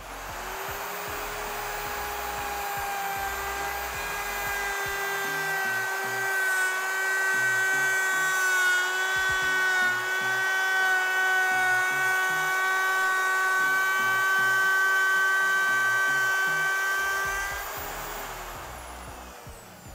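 Parkside POF 1200 D3 plunge router's motor whining at high speed while a round-nose bit cuts a half-round groove along a wooden board. It starts at the beginning and builds in loudness over the first few seconds, then holds steady. Near the end it is switched off and the whine falls in pitch as the bit spins down.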